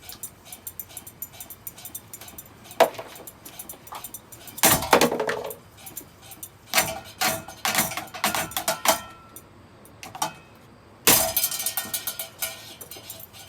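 Ceiling fan being smashed: repeated hard blows breaking it, with pieces clinking and rattling. Strikes come about 3 and 5 seconds in, then a flurry of hits, then a loud crash about 11 seconds in with ringing and rattling after it.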